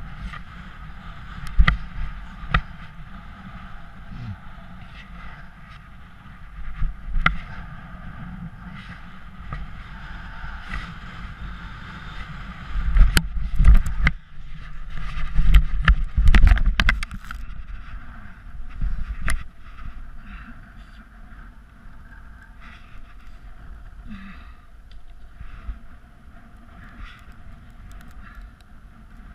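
Wind buffeting the kite landboarder's camera microphone while the board's wheels rumble over hard beach sand, with scattered knocks. About halfway through come loud thumps and scraping as the rider is lifted by the kite and slams onto the sand: the crash in which he broke his hip. After that the sound settles back to wind noise.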